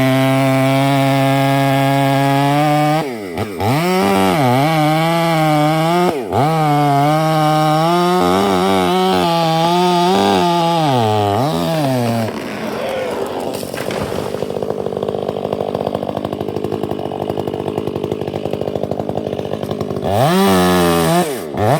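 Chainsaw running hard while cutting, its engine pitch dipping sharply and recovering about 3 and 6 seconds in and wavering under load. About 12 seconds in it drops to a quieter, rough rattling run, then revs up again briefly near the end.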